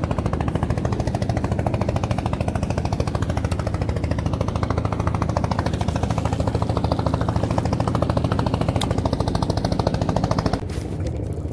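Small wooden fishing boat's engine chugging steadily with a fast, even knocking beat, dropping off abruptly near the end.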